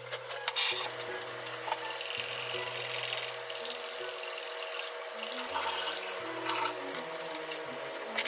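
Steady hiss of food cooking on a gas stovetop, with a short clatter about half a second in.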